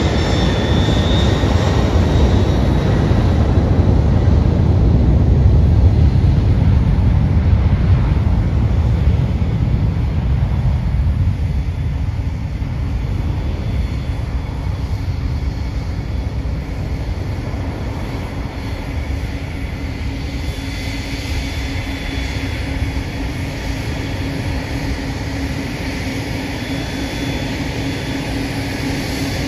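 Twin-engine wide-body cargo jet on its takeoff roll at takeoff power: a loud, rumbling jet roar that swells to its peak about five to eight seconds in, then fades steadily as the aircraft runs away down the runway and climbs out.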